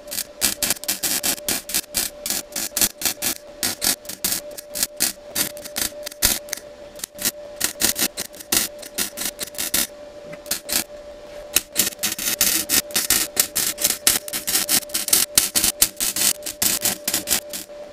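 MIG welder arc crackling and spitting as it seam-welds cracks in the steel chassis of a Ford Transit Mk1 van, in several runs with short pauses between them and a steady hum underneath.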